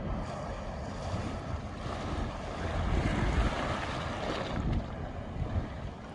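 Wind buffeting the microphone, over the wash of sea waves against the breakwater, in uneven swells.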